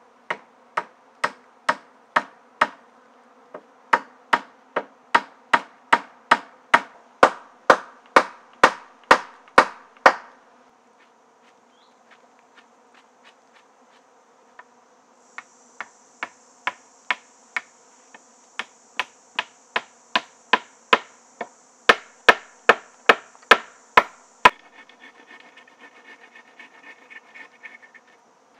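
Hammer blows on wood, about three a second, in two runs of roughly ten seconds each with a pause between. A steady buzzing of flying insects runs underneath.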